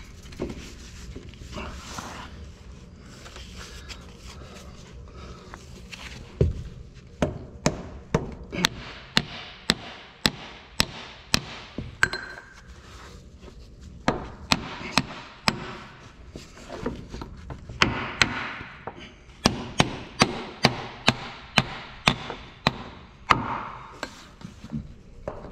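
A hammer tapping on metal in quick runs of sharp strikes, about two a second, with some scraping and handling noise between the runs.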